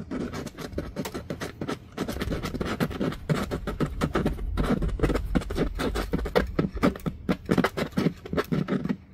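Cordless drill turning slowly at part trigger, spinning a speaker voice-coil former, with a fast, even run of clicks and a low hum underneath; it stops suddenly near the end.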